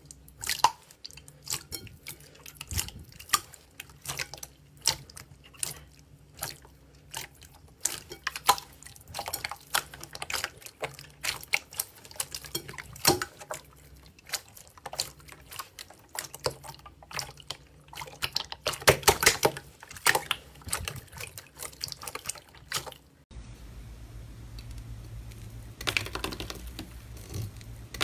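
Slime being squeezed and poked by hand: a long, irregular run of wet, sticky clicks and pops. About 23 seconds in it changes abruptly to a steady low hum with a few softer squelches.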